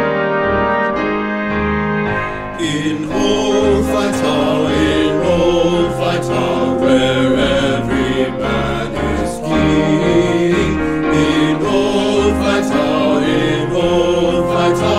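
Background music: a choir singing with piano, the sound growing fuller about two and a half seconds in.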